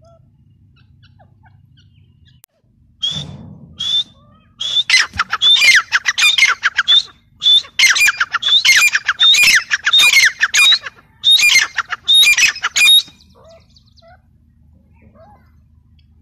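Grey francolin giving its loud ringing call: a few single notes about three seconds in, then a fast run of repeated, rising-and-falling phrases lasting some eight seconds, which stops a few seconds before the end.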